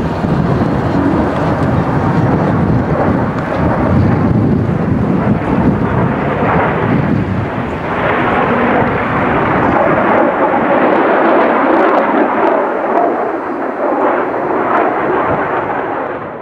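P-51D Mustang's Packard Merlin V-12 aero engine running loud and rough. About halfway through, the deep rumble drops away, leaving a higher, harsher engine sound, which cuts off abruptly at the end.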